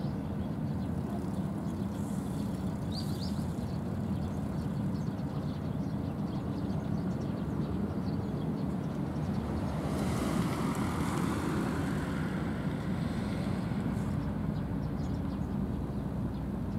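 Steady low rumble of distant motor traffic, swelling for a few seconds about ten seconds in as a vehicle passes, with a couple of faint high chirps early on.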